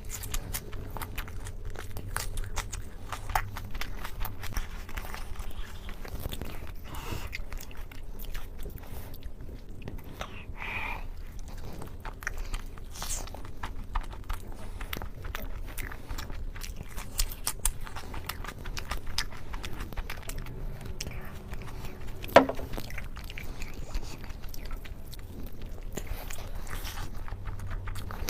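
Close-miked chewing and mouth sounds of a person eating, with many small wet clicks and light crunches and one sharper click about 22 seconds in. A steady low hum runs underneath.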